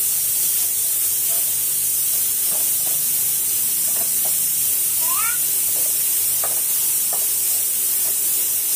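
Steady, loud hiss with a faint low hum beneath it, and a few faint taps and crinkles as children handle foil-wrapped chocolate coins. A short rising child's voice comes about five seconds in.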